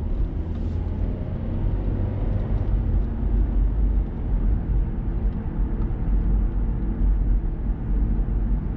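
Road and engine noise inside a Mazda 6's cabin while driving: a steady low rumble with a faint engine hum.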